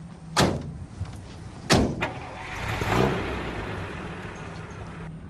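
Chevrolet pickup truck: two doors slam shut about a second apart, then the engine revs up and settles into a steady running drone as the truck moves off.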